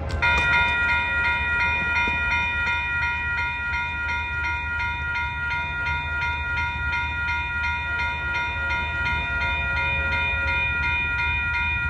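Railroad grade-crossing warning bell that starts abruptly and rings continuously, warning of the approaching train. A low rumble runs underneath.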